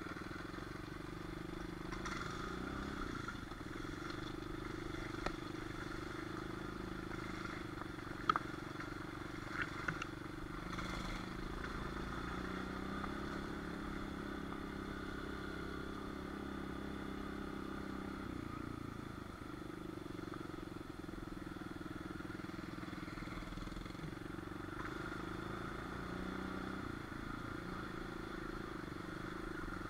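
Small dirt bike engine running at a steady speed, its pitch shifting a little midway, with a few light clicks about eight and ten seconds in.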